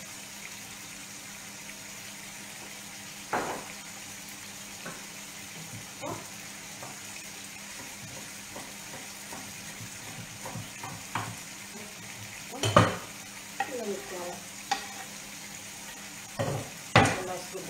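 Knife knocking irregularly on a wooden cutting board as herbs are chopped, over a steady sizzle from tomato sauce simmering in a pan. Louder knocks come about 13 seconds in and again near the end.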